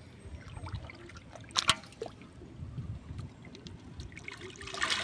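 Water trickling with small splashes, a sharp splash about one and a half seconds in, and louder splashing starting near the end.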